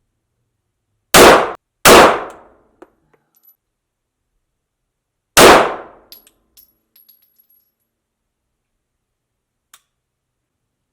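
Three pistol shots from a Sig P320 X-Carry on an indoor range, two in quick succession about a second in and a third some three and a half seconds later, each with a short echoing tail.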